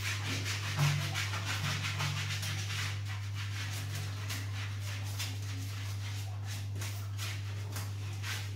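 Sponge scrubbing a wet, soapy puppy's fur in quick repeated rubbing strokes, over a steady low hum.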